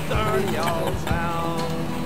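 Background music: a song with a held, gliding melody over a steady accompaniment.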